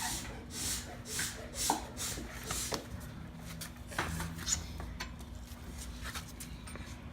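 Lug nuts being tightened onto a wheel with a wrench: short rasping metal strokes about two a second for the first few seconds, then scattered clicks and taps.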